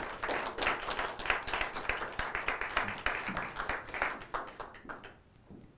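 Applause from a small audience: many hands clapping, dying away about five seconds in.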